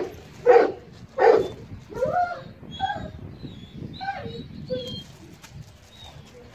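A large dog barking twice, then a few shorter, weaker whines and yelps that fade out after about five seconds.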